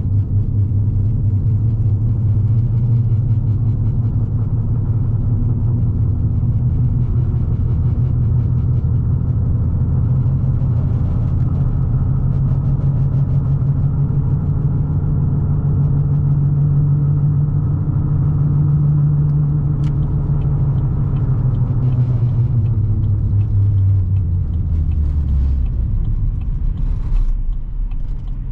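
Chevrolet 6.0L Vortec V8 with an aftermarket side-dump exhaust, a loud low drone under way. Its pitch creeps up slowly, then falls away about three-quarters of the way through and settles lower as the truck slows.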